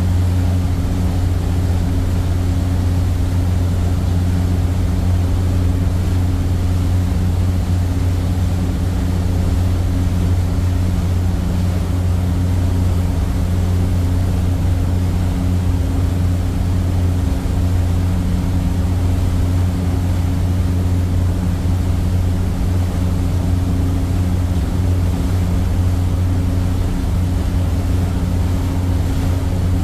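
Passenger ferry's engines running steadily at cruising speed, a deep even drone heard from the open rear deck, over a steady rushing of the wake and wind.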